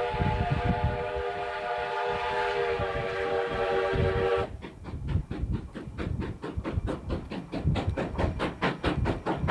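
A train's horn sounding a long, steady multi-note chord over a low rumble, cutting off sharply about four and a half seconds in. It is followed by a rapid, even clickety-clack of wheels over rail joints as the train rolls past.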